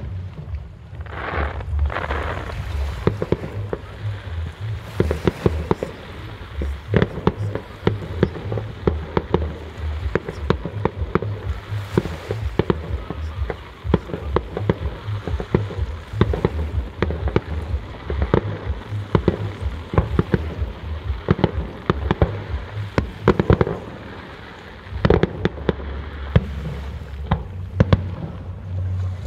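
Fireworks display: a dense, continuous stream of bangs and crackles from aerial shells and sparking fountains, with a short lull about three-quarters of the way through before the bangs pick up again.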